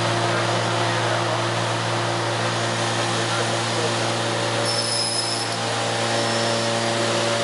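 Soukup Crafter window-joinery machining centre running with a steady motor hum, with a brief high whine about five seconds in.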